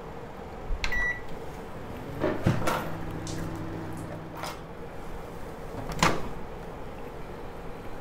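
Convection microwave oven: a short electronic beep about a second in, then clicks and a low hum for about two seconds, and a sharp loud click about six seconds in as the door is unlatched and opened.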